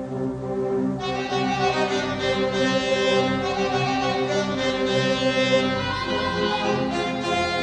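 Orchestral background music led by bowed strings: violin and cello lines, with the higher strings coming in about a second in.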